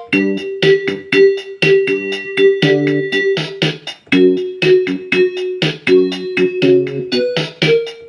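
Casio HT-3000 synthesizer keyboard playing an auto-accompaniment pattern: sustained chords and a bass line that change every second or so over a steady drum-machine beat.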